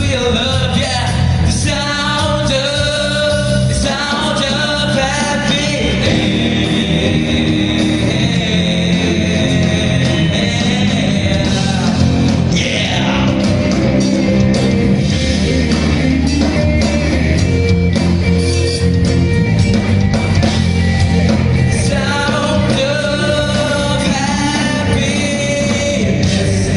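Live rock band playing, with drums, bass and electric guitar under a male lead vocal singing. The voice drops out for a stretch in the middle while the band holds a long sustained note.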